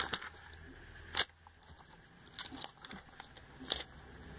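Glossy catalog pages being turned by hand: a few short, crisp paper snaps and rustles spread across a few seconds.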